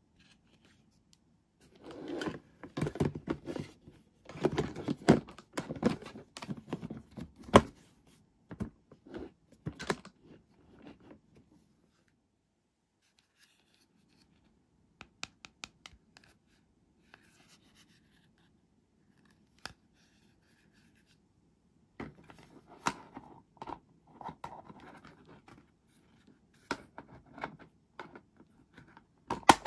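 Hard plastic toy parts being handled: clicks, taps and scraping as pieces of a plastic toy doctor set are moved and fitted together. Busy at first, then quiet with a few single clicks, then busy again near the end.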